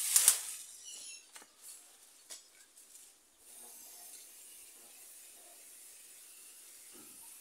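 Loud rustle and crackle of dry weeds and brush being trodden through, then a few small clicks and scrapes. From about three and a half seconds in, a faint steady high hiss.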